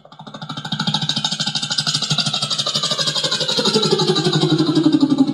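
A person imitating a motorcycle engine with their voice: a rapid pulsing drone that swells over the first second and then holds, its pitch slowly falling.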